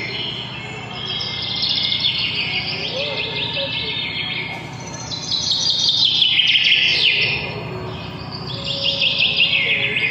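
Small birds chirping in rapid trills, in three long runs; the second and third runs slide down in pitch.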